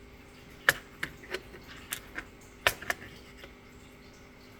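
Small hard clicks and taps from the parts of a disassembled ASSA D12 lock cylinder being handled: about eight irregular clicks over three seconds, two of them sharper than the rest.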